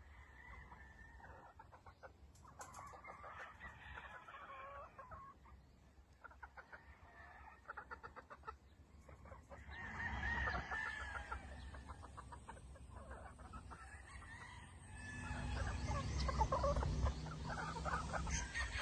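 A flock of free-range chickens clucking, with a rooster crowing among them; the calls grow louder about ten seconds in and again near the end.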